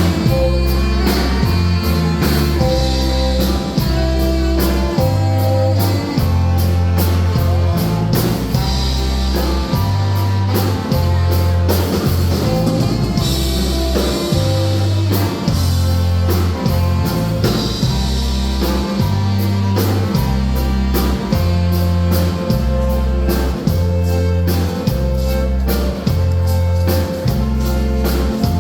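A live band playing a waltz, with a steady repeating bass line under melody instruments.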